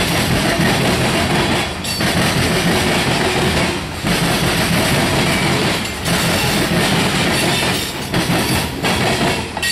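A freight train's hopper cars roll past, a loud steady rumble and clatter of steel wheels on rail. The sound dips briefly about every two seconds as car gaps go by, and the last car passes near the end.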